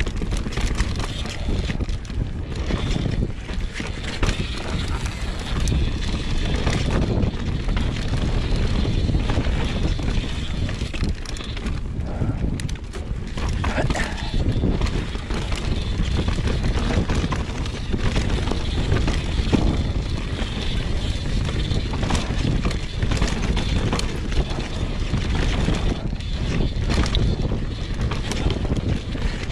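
Mountain bike descending a dirt trail: knobby tyres rolling over the ground while the bike rattles and knocks over roots and bumps, with wind buffeting the microphone.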